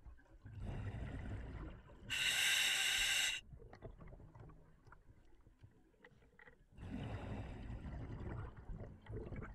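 Scuba diver breathing through an OTS Guardian full face mask's demand regulator: a low bubbling rumble of exhaled air, then a louder hissing inhale with a faint whistling tone lasting about a second. After a pause of a few seconds comes another bubbling exhale.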